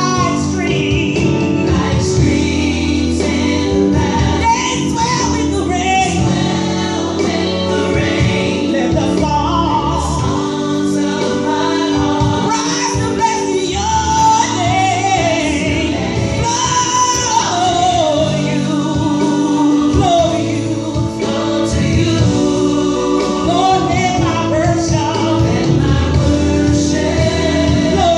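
Gospel song with a sung melody over steady instrumental backing.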